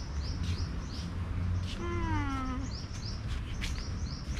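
A cat meowing once, a falling call about two seconds in. A high chirping repeats about three times a second throughout.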